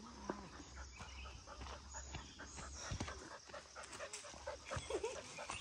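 A dog panting faintly, with small rustles and clicks around it.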